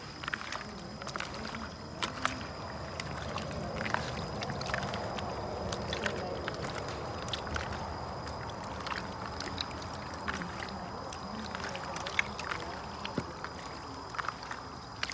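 Hands kneading raw chicken pieces in a wet spice marinade in a plastic basin: continuous squelching and sloshing, broken by many small irregular clicks and knocks.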